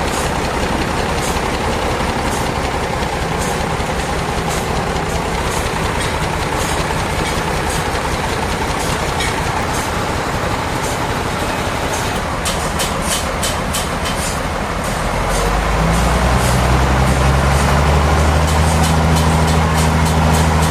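Sawmill machinery running with a steady mechanical noise and scattered sharp clicks and knocks. About fifteen seconds in, a deeper, steady engine hum comes in and the sound gets louder.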